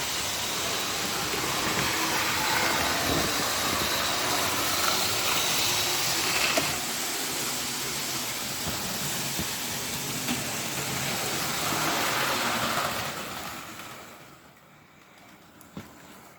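Model railway locomotive running along the track: its small electric motor and wheels on the rails make a steady running noise that fades away about thirteen seconds in as it stops.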